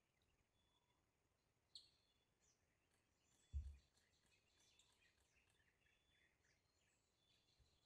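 Near silence of forest ambience with faint, scattered bird chirps. A single low thump about three and a half seconds in.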